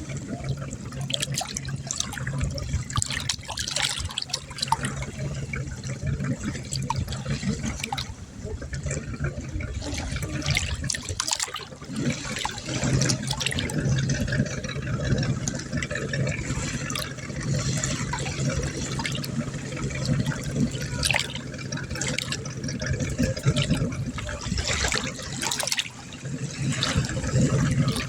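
Water splashing and lapping in irregular bursts, over a steady low hum.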